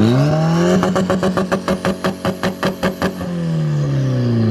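Car engine revving up and held against a two-step launch rev limiter, which cuts it with sharp pops about six times a second for about two seconds; the revs then fall back to idle.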